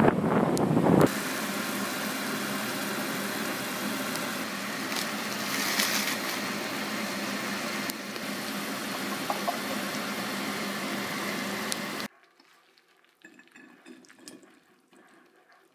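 Wind buffeting the microphone for about the first second, then frozen mixed vegetables sizzling in a frying pan, a steady even hiss that cuts off suddenly near the end. After that come only faint light clinks.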